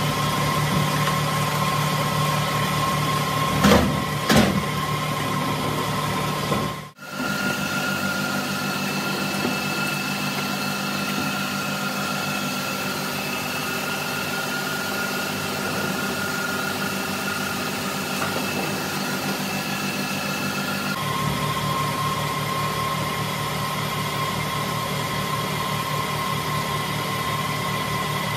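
Steady hum of workshop machinery running, with two knocks about four seconds in. The hum cuts out for a moment about seven seconds in, then carries on.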